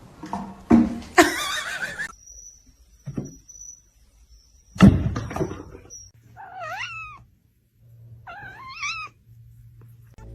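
Pet cat meowing: two short meows that rise and fall in pitch, about six and eight and a half seconds in. A loud thump comes just before the middle, and a noisy scuffle comes in the first two seconds.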